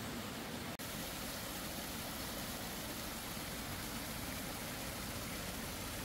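Steady rush of water from a small stream spilling over rocks in a shallow cascade, with a very brief break in the sound just under a second in.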